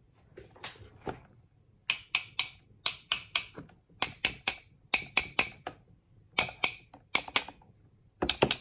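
Plastic screwdriver handle tapping the steel shaft of a Honeywell HT-900 fan's PSC motor, sharp clicks in quick groups of three or four with short pauses between, starting about two seconds in. The taps knock the motor's self-aligning bearings back into alignment after reassembly.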